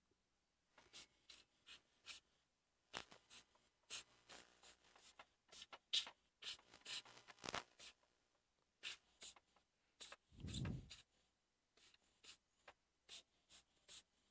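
Faint, irregular clicks, taps and scratching from handling tools and a graphics card on a repair bench, with one brief low sound about ten and a half seconds in.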